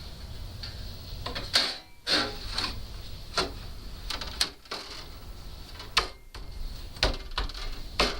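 Irregular sharp clicks and knocks, about eight of them, from metal door-lock hardware being handled and fitted.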